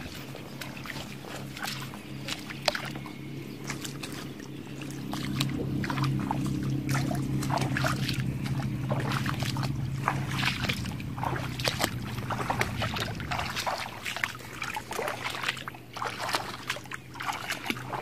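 Bare feet splashing through shallow water and wet grass, one step after another, the steps coming thicker after about five seconds. A steady low hum runs underneath.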